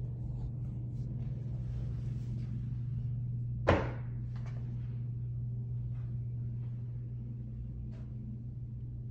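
A steady low hum of room noise, broken a little under four seconds in by one short, sharp clack that is the loudest thing heard, with a few faint ticks around it.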